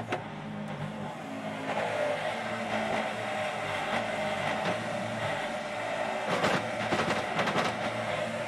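Yanmar mini excavator's diesel engine running under hydraulic load as the machine swings its arm aside, with a run of knocks and clatter about six to seven and a half seconds in.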